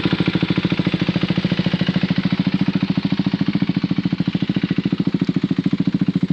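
Single-cylinder Husqvarna Svartpilen 401 motorcycle engine idling steadily, with an even pulse of about a dozen firing beats a second.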